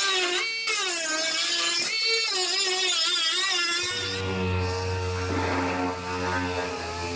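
Pneumatic cut-off wheel whining as it cuts through the sheet-steel rocker panel, its pitch wavering as the load on the disc changes, over a hiss of grinding. About four seconds in it gives way to the steadier, lower hum of an air-powered dual-action sander.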